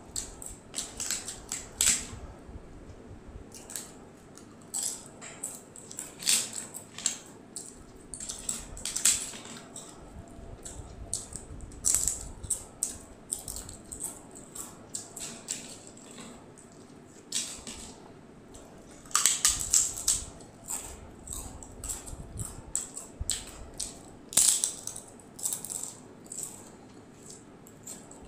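Crisp papad (poppadom) being broken and eaten: irregular sharp cracks and crunchy chewing close to a clip-on microphone, with louder flurries of cracking about two-thirds of the way through and again a few seconds later.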